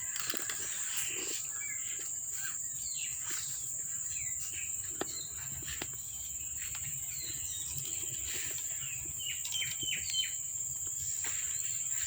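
A steady high-pitched chorus of crickets, with many short, high chirps scattered over it.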